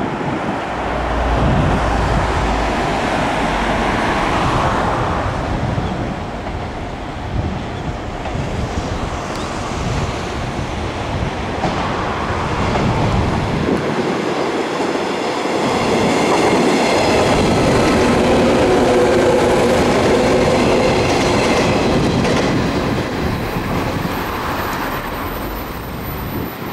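JR 115 series electric multiple unit running past on the track, its wheels clattering over the rails. It grows louder as it approaches and is loudest as the cars go by about two-thirds of the way in. A steady high whine rings over the rumble while it passes, then everything eases off slightly near the end.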